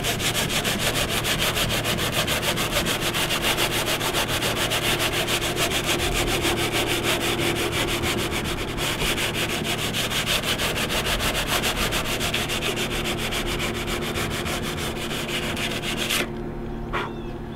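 Sandpaper being rubbed by hand over a fiberglass canoe hull in quick, even back-and-forth strokes, roughing the surface so the patch resin will stick. The sanding stops near the end.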